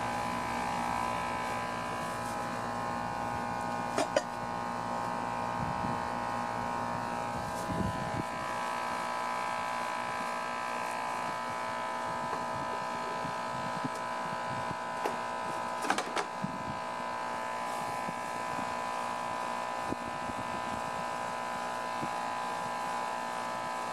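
A steady electrical buzzing hum, with a few sharp metallic clicks and clinks from hand tools on engine hardware: one about four seconds in, and a small cluster around sixteen seconds.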